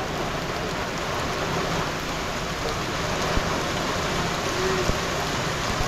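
Rain falling steadily: an even hiss with a few sharper drop hits now and then.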